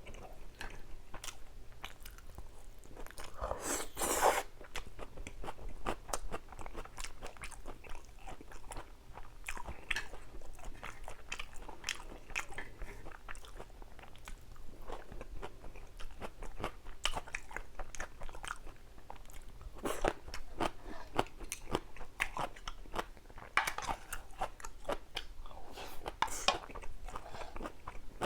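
A person eating, biting and chewing crunchy food in a steady, irregular run of crunches and mouth clicks, with one louder crunch about four seconds in.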